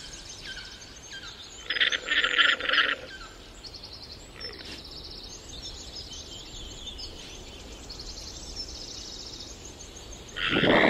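Birds chirping in the background, with a louder, rapidly pulsed rattling call about two seconds in. A loud, noisy rushing sound sets in near the end.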